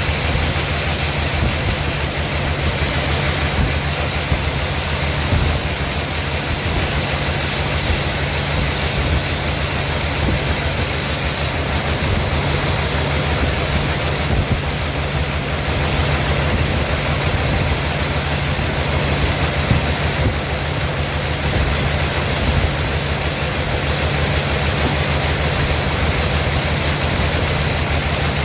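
Sawmill machinery running steadily, a constant low hum under a steady high-pitched hiss, with no change in load.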